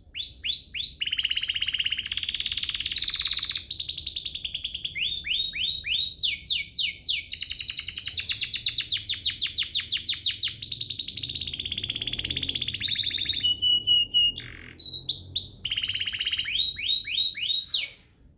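Domestic canary singing a long, fast song of rapid trills and rolls, with runs of quick downward-sweeping notes. It switches phrases every second or two, breaks off briefly about three quarters of the way in, then finishes with a last run of sweeps and stops just before the end.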